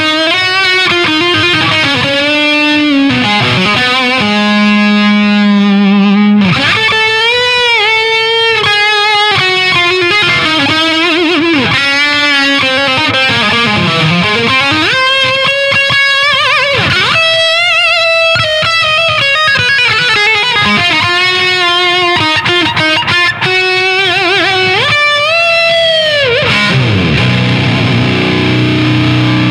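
Overdriven electric guitar lead played through a Marshall DSL50 valve head into a Marshall 1960 cabinet with a Celestion G12T-75 speaker, miked close: long held notes with pitch bends and wide vibrato, a low note held about four to six seconds in.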